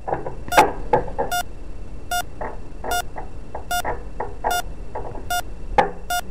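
Hospital heart-monitor sound effect beeping steadily, one short high beep a little over once a second, with a few soft knocks.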